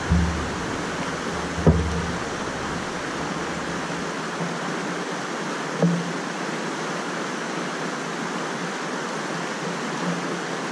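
Flash-flood water rushing steadily, a constant hiss. There are a few dull thumps in the first two seconds and one more about six seconds in.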